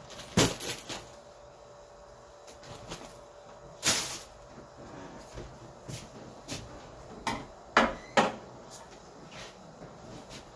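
Irregular knocks and bumps of household objects being handled and moved in a room, with a sharp one about half a second in, a longer one near four seconds, and two close together around eight seconds.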